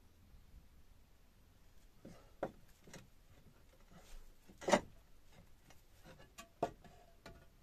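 A handful of separate knocks and scrapes as clay roof tiles are handled and shifted on their wooden battens from inside the roof, with the loudest knock a little past halfway.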